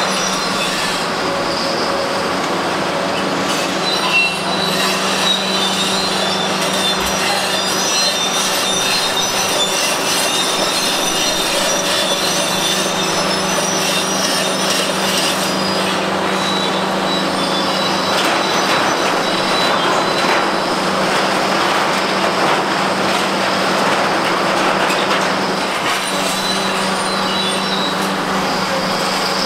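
Kobelco SK850 demolition excavators at work: a steady diesel engine drone under the grinding and crunching of concrete and steel in the hydraulic jaws, with high metallic squealing coming and going. There is a single louder knock about four seconds in.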